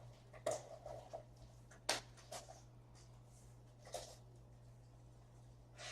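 Faint rustles and small clicks of trading cards being handled, a few scattered brief sounds in the first few seconds, over a low steady hum.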